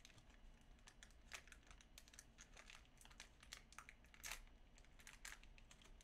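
Faint crinkling and scattered light clicks of 1992 Topps baseball cards and their packaging being handled.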